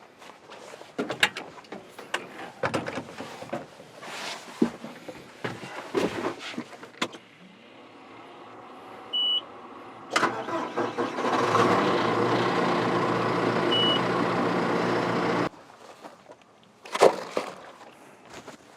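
Knocks and clicks of hands at work, then a John Deere tractor's engine starting about ten seconds in and running steadily for about five seconds before stopping suddenly. Two short high beeps sound, one just before the engine and one while it runs.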